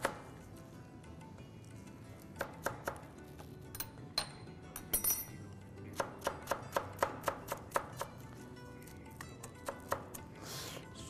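Knife chopping spinach on a plastic cutting board, in short runs of quick strokes (about four a second) with pauses between. Faint background music underneath.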